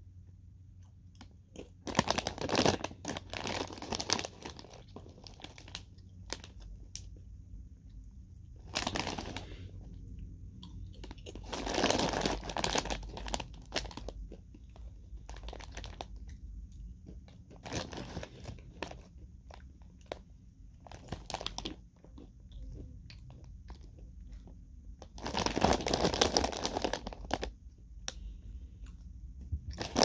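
A crinkly plastic snack bag of banana chips rustling in several bursts as it is handled, with crunching and chewing of the dried banana chips in between.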